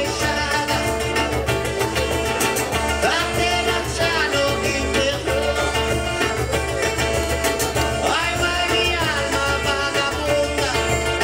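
Live band playing an upbeat Latin-style song: a man sings lead over electric guitar, accordion, saxophone and hand percussion, with a steady beat.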